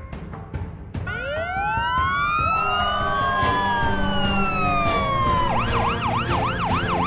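Emergency vehicle sirens starting about a second in, several wails rising and falling in pitch over one another, then switching to a fast yelp of about three cycles a second near the end. This is the siren sound that signals help on the way.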